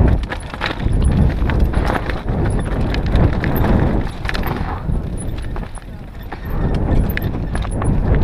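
Mountain bike descending a rocky dirt trail: a steady rumble broken by irregular knocks and rattles as the tyres hit loose stones, picked up through a handlebar-mounted action camera.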